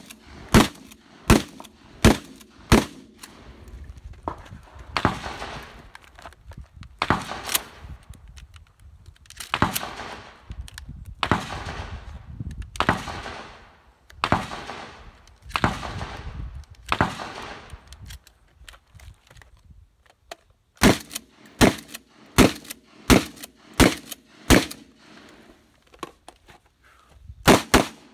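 Gunfire from a 12-gauge bullpup shotgun and a Glock pistol. A quick string of about five sharp shots opens, then about seven slower shots one to two seconds apart, each with a long echoing tail. In the last third come quick runs of sharp shots again.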